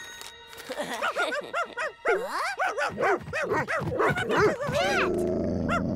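Cartoon dogs barking and yapping in a quick string of short, up-and-down cries. Near the end a low, steady growl takes over.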